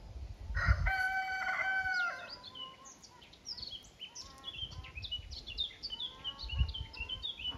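A rooster crows once, a long, loud call of about a second and a half. Small birds then chirp in many quick, short falling notes.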